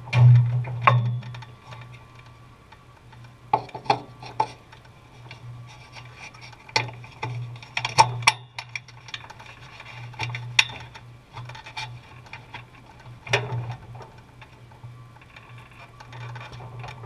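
Scattered sharp clicks and knocks in a race car's cockpit, loudest about a second in and again near the middle, over a low steady hum.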